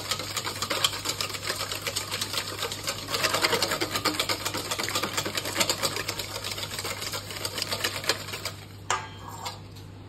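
Wire whisk beating egg yolks in a stainless steel bowl, its wires clicking rapidly against the metal. The whisking stops near the end, followed by a couple of single taps.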